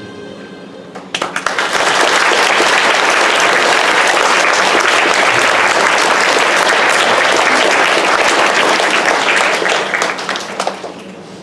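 A crowd applauding: the clapping breaks out about a second in, holds steady and loud for about nine seconds, then dies away in a few scattered claps. A piece of music is just ending as the clapping starts.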